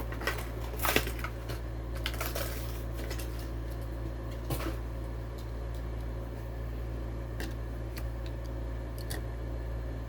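Hot Wheels blister packaging being handled and opened: scattered clicks and crackles of plastic and card, busiest in the first three seconds, over a steady low hum.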